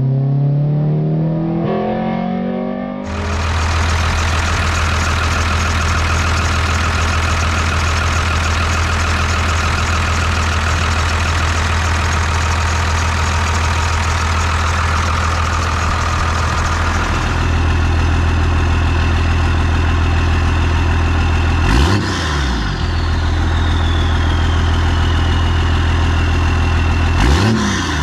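1993 Dodge Ram 250's 12-valve Cummins inline-six turbo diesel revving up, then running steadily and settling to idle with a high turbo whistle. Twice near the end it is blipped quickly, and each time the turbo whistle winds down in pitch afterwards.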